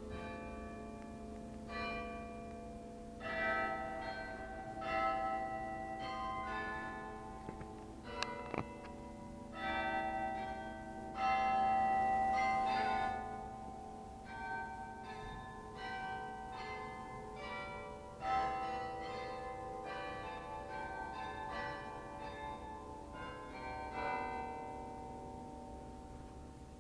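St. Pierre Cathedral's church bells ringing: several bells of different pitch struck again and again in an irregular, overlapping pattern, each stroke ringing on long after it is struck. A brief sharp click sounds about eight seconds in.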